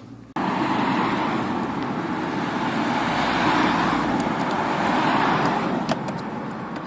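Road traffic noise: a steady rush without clear tones that starts abruptly just after the start and swells a little around the middle.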